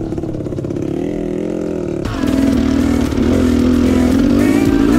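Enduro dirt bike engine running and revving, its pitch wavering up and down. It gets louder about two seconds in.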